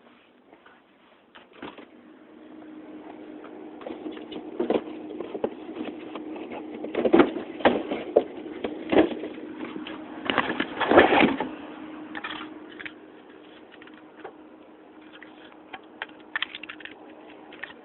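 Tree branches cracking and snapping in bursts, loudest about seven and eleven seconds in, over a steady hum from the bucket truck's hydraulics as the boom is moved.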